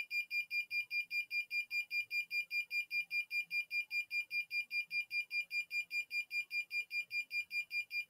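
Fire-alarm buzzer on an ESP32 circuit beeping continuously in a fast, even stream of high-pitched beeps, about six a second. The alarm is triggered because the flame sensor and the smoke sensor both detect fire.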